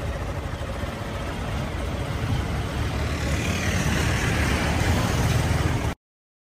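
Motor vehicle travelling on a road: steady engine rumble and road noise, growing a little louder, then cut off abruptly near the end.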